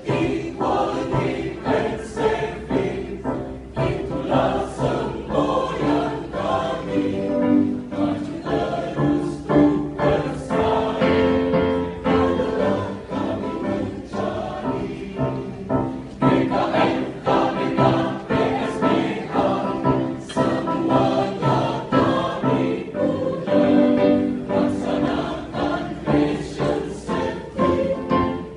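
Choir singing a song in several parts.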